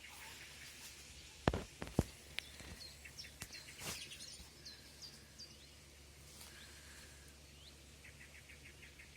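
Small birds chirping, with short quick trills, over a steady low hum; two sharp knocks about a second and a half and two seconds in.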